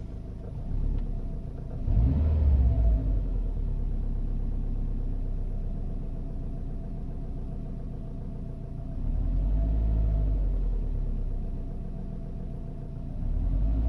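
2012 Subaru WRX's turbocharged flat-four engine running, swelling louder three times: about two seconds in, around nine seconds and near the end. The owner posted it for a knocking sound from the car.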